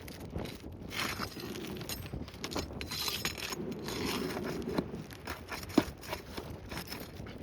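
Asphalt roofing shingles being pried and pulled loose: irregular scraping, crackling and tearing of the shingle, with clicks from the tool, and one sharp snap about six seconds in.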